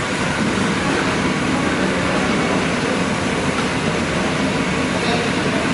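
Okra deep-frying in a large iron kadai of oil over a gas burner: a loud, steady roar and sizzle.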